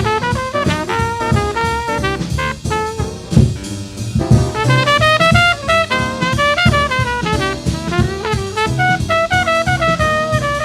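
Late-1940s bebop jazz quintet recording: a horn plays a fast solo line of quick running notes over a drum kit.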